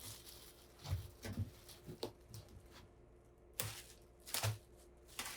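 Scattered handling sounds of unpacking: about half a dozen light knocks, taps and brief rustles of a box and packing material, with quiet stretches between.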